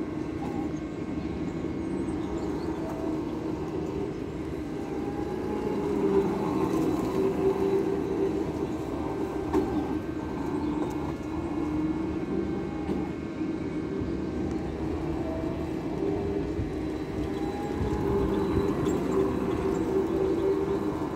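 Motor of a child's ride-on go-kart running steadily as it circles the track, its pitch gliding up and down and growing louder as the kart comes nearer.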